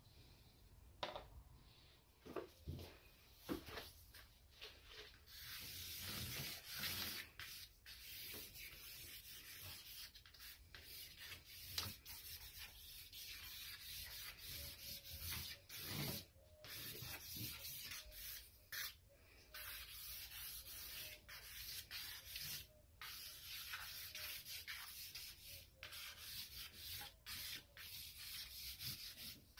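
Willow charcoal stick scraping across cartridge paper in drawn strokes, a dry scratchy hiss. A few short scratches and light taps come first, and near-continuous scraping with brief gaps between strokes starts about five seconds in.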